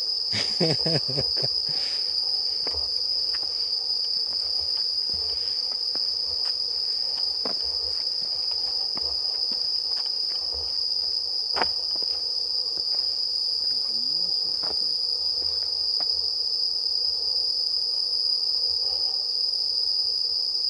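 Steady, high-pitched chorus of crickets singing without a break, with faint footsteps on pavement and one sharper click about halfway through.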